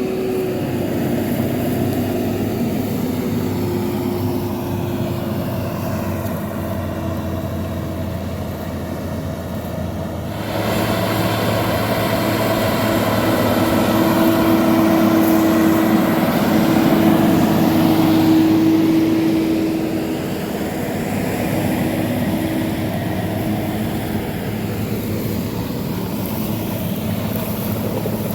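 John Deere 7430 Premium tractor's six-cylinder diesel engine working under load while pulling a slurry tanker with soil injectors. Its sound changes abruptly about a third of the way in, grows louder for several seconds, then eases off.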